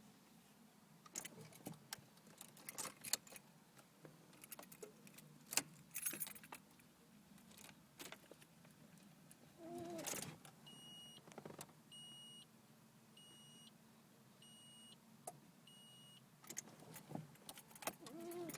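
Car keys jangling and clicking at the ignition of a 1995 Nissan 200SX SE-R, then a dashboard warning chime beeping five times about a second apart, with no starter cranking or engine running.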